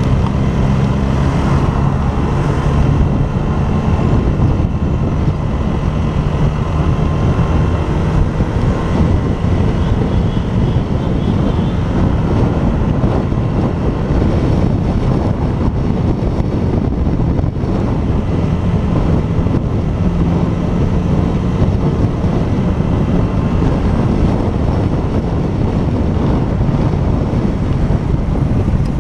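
Honda motorcycle engine running steadily under way, heavily mixed with wind buffeting on the camera's microphone.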